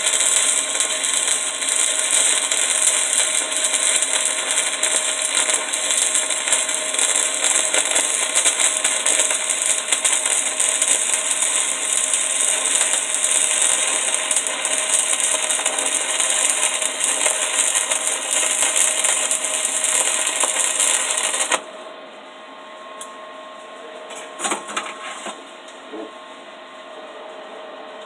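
Stick (SMAW) welding arc with a 3/32-inch 7018 low-hydrogen rod at about 70-75 amps, giving a steady, dense crackle that cuts off suddenly about 22 seconds in as the arc is broken. A few faint clicks follow.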